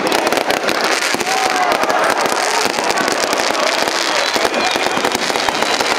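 Aerial fireworks crackling and popping in a rapid, unbroken stream, with crowd voices mixed in.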